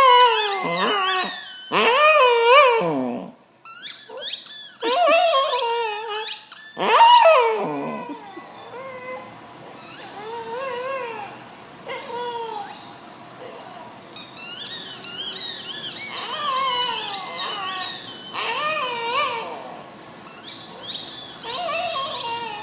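A dog's squeaky rubber toy football squeezed in a Glen of Imaal Terrier's jaws, giving long, wavering squeals that bend up and down in pitch. They are loud for the first eight seconds or so, then fainter squeals of the same kind keep recurring.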